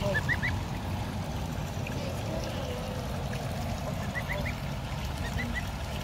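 Goslings and ducklings peeping: short, high, rising peeps in quick runs of two or three, several times over.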